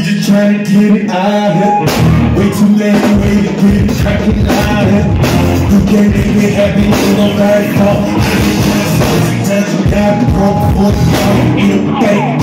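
Live band music, loud and with a steady beat: drums, electric guitar and a strong bass line, with a male singer's voice through the PA.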